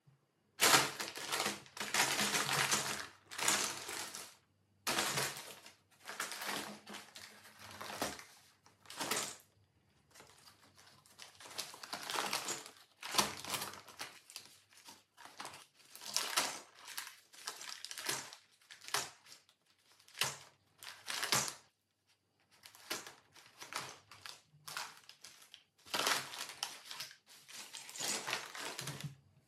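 Brown paper produce bag crinkling and rustling as a Bengal cat bites, bats and rolls with it, in irregular bursts of a second or so with short pauses between.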